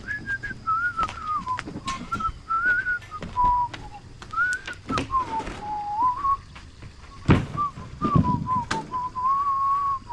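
A person whistling a wandering tune, broken by scattered knocks and thuds from work, the loudest about seven seconds in.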